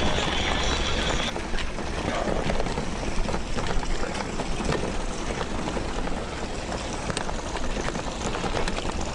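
Steady rushing wind and road noise from riding a touring bicycle, with scattered small clicks and rattles. A high steady tone cuts off about a second in.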